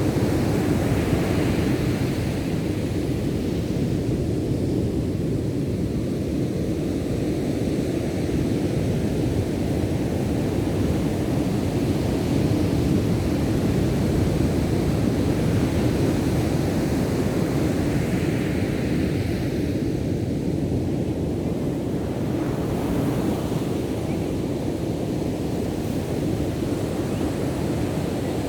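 Ocean surf breaking on the beach: a steady low rumble of waves, with the hiss of a wave washing in swelling near the start and again about two-thirds through.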